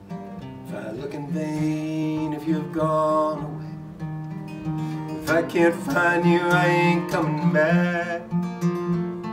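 Early-1970s Guild acoustic guitar strummed in a steady song accompaniment, with a man's voice singing two long phrases over it, one starting about a second in and another about five seconds in.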